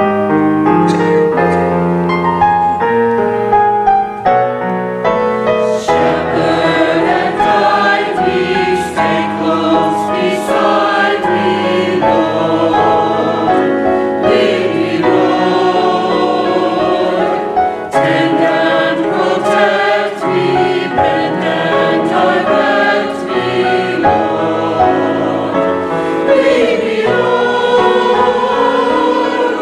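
Church choir singing gospel music with musical accompaniment.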